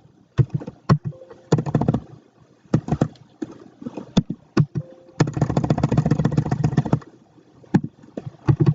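Computer keyboard typing: scattered key clicks, with a run of rapid keystrokes lasting about two seconds past the middle.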